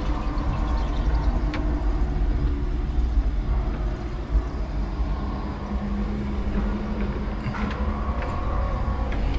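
5-ton electric forklift truck driving with a loaded stack of boards on its forks: a steady low rumble with an electric motor hum, and a few short knocks and rattles.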